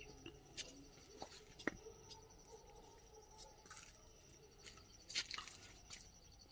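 Faint outdoor garden ambience: a steady, high, pulsing insect trill throughout, with a few short high bird chirps and small scattered clicks.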